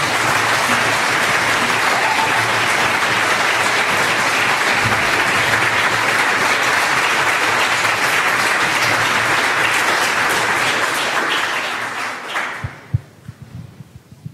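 Audience applauding steadily, then dying away about twelve seconds in. A few dull knocks follow near the end.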